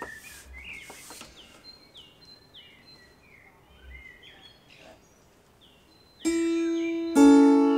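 A songbird sings, repeating short falling chirps for about six seconds. Then the strings of a Veeh harp, a zither-like lap harp, are plucked: one ringing note, and about a second later a second pluck that adds a lower note.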